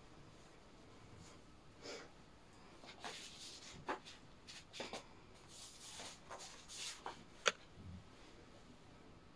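Short, irregular scratching strokes of a pen or pencil on paper with small clicks, and one sharper click about seven seconds in.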